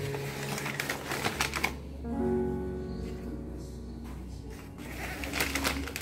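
Paper towel crinkling as it is handled, in two spells of crackly clicks: one during the first second or so and one near the end. Soft background music with held notes plays underneath.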